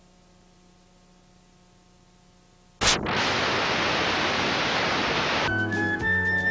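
Loud, even hiss of videotape static from a blank stretch of tape between recordings, starting abruptly about three seconds in after faint near-quiet. It cuts off near the end as background music begins.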